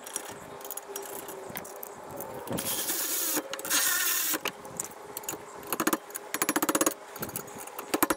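Cordless electric ratchet running in two short bursts, about two and a half and four seconds in, driving in the rear brake caliper bracket bolts. Scattered metallic clinks of tools and parts run through it, and later come stretches of rapid, even clicking from the ratchet.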